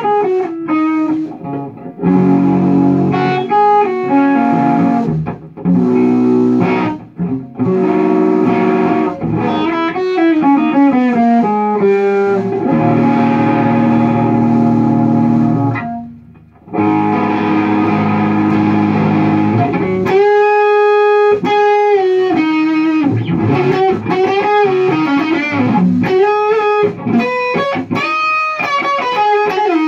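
Electric guitar played through a Lone Wolf Audio Left Hand Wrath distortion pedal set for a mid-gain, plexi-style Marshall tone. It plays chordal riffs, breaks off briefly just past halfway, then moves into a lead line of held single notes with bends.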